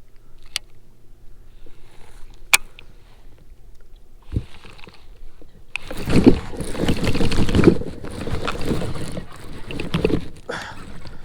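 Water splashing and knocking against a fishing kayak as a hooked bass is landed. The loud splashing and knocking starts about six seconds in; before it come a couple of sharp clicks and a low thump.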